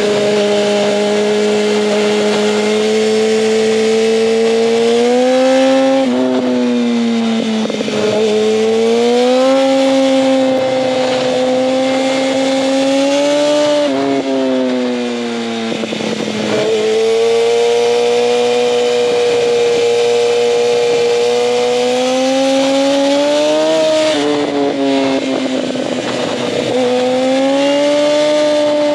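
A 2004 Yamaha R1's inline-four engine running hard under way. Its pitch climbs steadily under throttle and drops back sharply about six times as the throttle is closed or the gears change.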